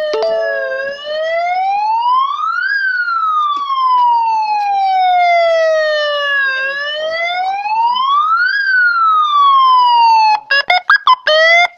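Motorcycle telolet horn, a single trumpet driven by a multi-tone module, sounding a siren wail: the pitch rises and falls slowly twice, each sweep a few seconds long. Near the end it breaks into a quick string of short toots.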